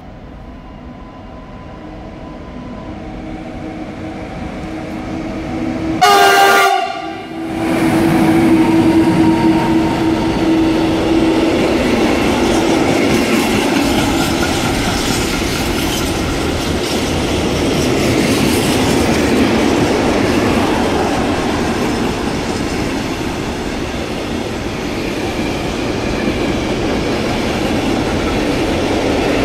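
Class 189 electric locomotive approaching, louder and louder, then sounding one very loud horn blast about six seconds in as it reaches the microphone. A long container freight train follows, its wagons rolling past with steady rumble and wheel clatter.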